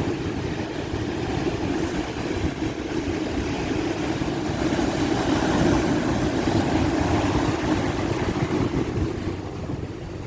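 Ocean surf at high tide: waves breaking and washing up the beach in a continuous rush. It swells to its loudest a little past the middle and eases off near the end.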